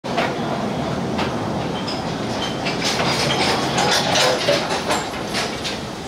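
Taipingshan Bong Bong train, a small narrow-gauge forest tourist train, rolling past with its open carriages clicking and clacking on the rails, with a few brief high squeaks from the wheels.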